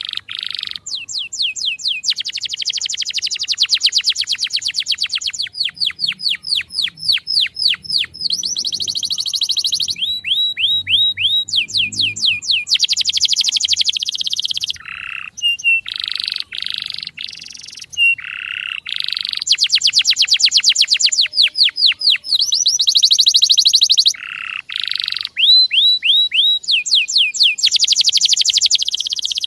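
Male canary singing: long, fast trills and runs of rapid repeated high chirps, some sliding downward, with only short breaks between phrases.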